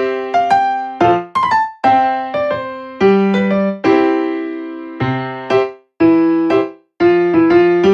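Background music: piano or electric piano playing chords and melody notes, each note struck and fading, about one chord a second.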